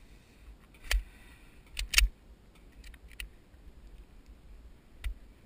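Glock 20 10mm pistol shots firing Double Tap wide flat nose gas-checked rounds, sounding thin and muffled through the camera's waterproof housing: a shot about a second in, two quick shots around two seconds, and another near the end.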